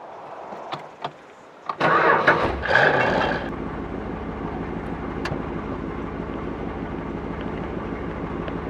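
1972 Dodge Challenger's 340 cubic-inch V8 being started: a few clicks of the ignition key, then the engine cranks and catches about two seconds in, revs briefly and settles into a steady idle.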